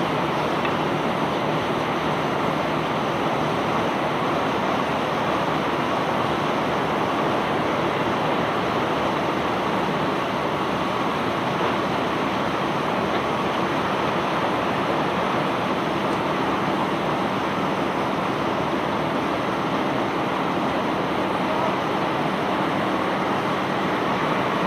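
Self-unloading barge's machinery running steadily: an even rushing noise with a low hum beneath, no separate knocks or impacts.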